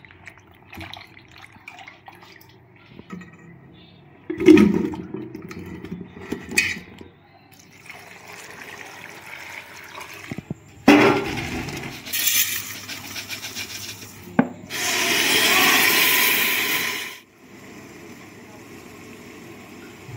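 Water splashing as cubes of ash gourd (petha) are swished by hand in a steel bowl, then tap water pouring hard into the bowl, the loudest part, which cuts off suddenly near the end.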